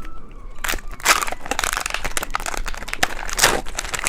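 Close-up crunching and crackling of candy being handled and eaten, starting about a second in and going on densely, with wrapper crinkling mixed in.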